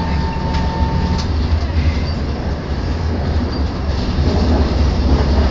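Tram running along its rails, heard from inside the car: a steady low rumble of wheels and running gear, with a thin steady whine that stops about a second in and a few faint clicks.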